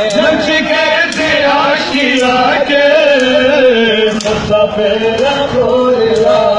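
A crowd of men chanting a mourning lament (noha) together, with repeated sharp slaps of hands beating on bare chests in time (matam).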